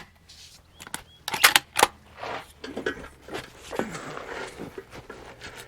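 A bolt-action rifle being handled and readied to fire: a few sharp metallic clicks close together, followed by softer shuffling and handling noise.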